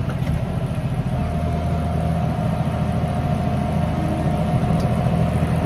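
Tractor engine running steadily, heard from inside the cab; about a second in its note firms up and a faint steady whine joins it.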